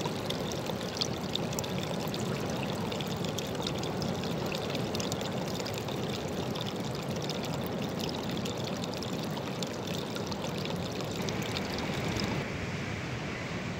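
A small stream of water pouring over a rock ledge into a rock pool: a steady splashing trickle full of small drips. About a second before the end, the splashing gives way to a duller, smoother rush.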